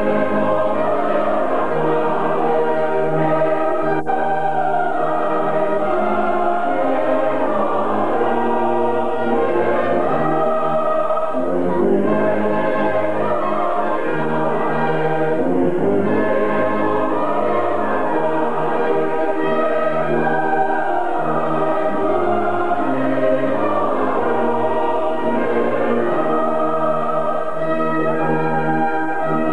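Church choir singing a hymn, many voices holding chords that change every second or so.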